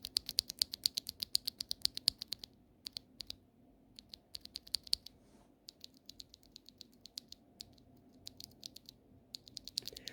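Glorious Holy Panda tactile mechanical keyboard switches being pressed and released, a fast run of clacks for the first couple of seconds, then sparser groups of presses.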